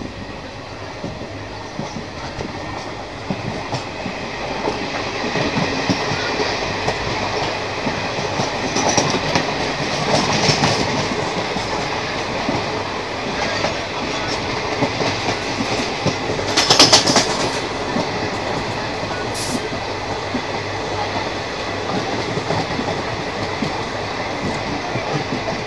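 Indian Railways passenger train running at speed, heard from inside a coach: steady wheel-and-rail rumble, louder from about five seconds in as another train runs alongside on the next track. A short, loud clatter about seventeen seconds in.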